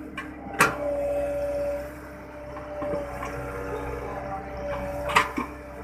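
Mini excavator's diesel engine running with a steady whine as it digs in mud, with two sharp knocks, one about half a second in and one near the end.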